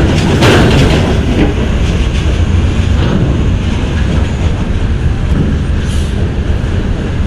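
Coach bus driving off the ferry's steel loading ramp onto the metal-grating car deck: a loud, steady low rumble of its engine and tyres on the metal. A few clanks from the ramp plates in the first half second.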